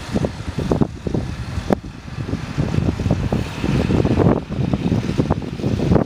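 Wind buffeting the camera's microphone: a loud, uneven low rumble with irregular gusts.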